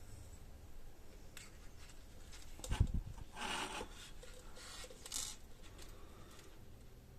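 Soldering tools and a small circuit board handled on a workbench: brief rubbing and scraping noises, with a dull knock a little under three seconds in.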